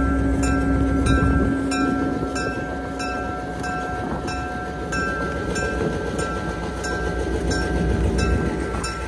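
Southern Railway 6133, an EMD FP7 diesel locomotive, rolls slowly by pulling passenger coaches. There is a steady engine rumble with a constant hum, and a sharp regular beat comes about twice a second.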